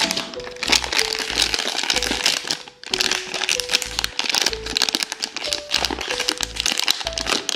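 A plastic Rolife blind-bag wrapper crinkling and rustling in the hands as it is worked open, dense and continuous. Background music with a steady beat plays underneath.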